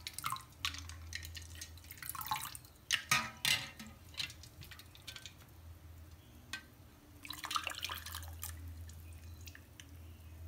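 Sorrel drink ladled and poured over ice cubes in a glass, splashing and dripping in three spells, about 2 seconds in and again about 7 seconds in after the first, with quieter dripping between.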